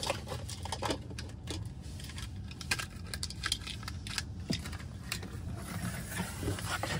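Handling noise: scattered light clicks, taps and small rattles of objects being handled, over a low steady hum.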